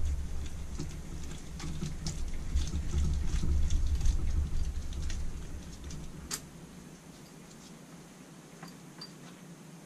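Small clicks and scrapes of metal parts as a Holley carburettor is handled and taken apart with gloved hands, over dull knocking from the handling, with one sharper click about six seconds in; quieter after that.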